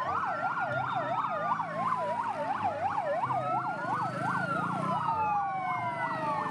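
Fire engine sirens: a fast yelp sweeping up and down about three times a second, overlapped by slower wails that rise and fall over several seconds, with a low engine rumble underneath.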